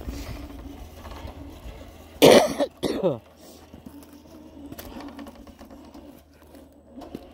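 A person coughs twice in quick succession, loud and close to the microphone, about two seconds in. Faint low wind rumble sits under the first few seconds.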